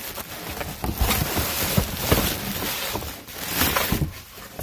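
Packaging being handled and rustled while a box is unpacked: a constant crinkling noise with many short knocks and rustles.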